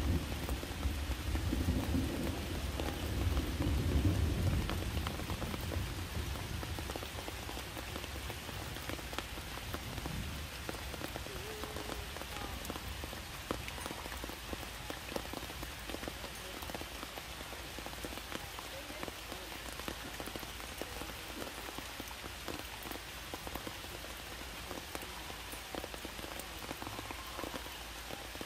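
Steady rain falling, with scattered drops ticking. A low rumble fades out over the first few seconds.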